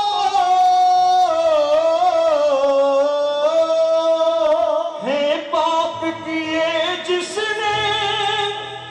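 A man singing a Hindi devotional bhajan into a microphone. He draws out long held notes that slide slowly downward, then starts a new phrase with an upward swoop about five seconds in, over a low steady backing note. The singing falls off near the end.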